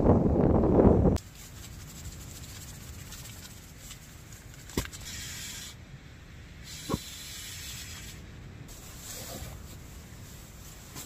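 Wind buffeting the microphone for about the first second, then a much quieter tent interior: a few hissing breaths, about a second each, blown into an inflatable camping pillow, with nylon rustling and a couple of light clicks.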